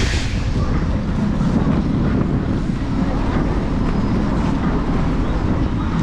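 Steady low wind rumble and road noise on a handlebar-mounted action camera riding an electric scooter at speed, with a brief sharp click at the very start.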